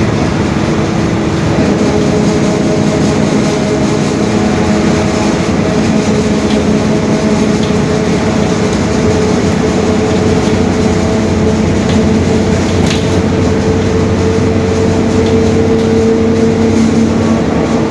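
Mercedes-Benz OF-1721 Bluetec 5 bus under way: the diesel engine and drivetrain run with a steady rumble and a droning tone from the growling differential, which grows stronger in the second half. A few light rattles and clicks sound over it.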